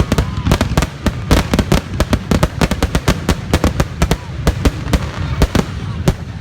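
A rapid barrage of aerial firework bursts, several loud bangs a second in close succession, thinning out near the end, the dense pace of a fireworks finale.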